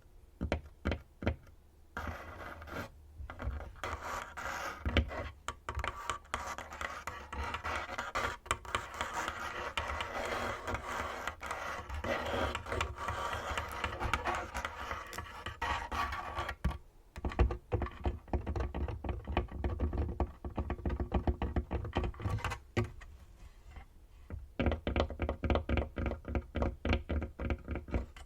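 Fingernails tapping on a tabletop. A few separate taps give way to a long stretch of fast, dense nail tapping and scratching. From about 16 seconds in come separate knocks with a dull thud, the nails tapping on the underside of the table, and near the end a quick run of taps.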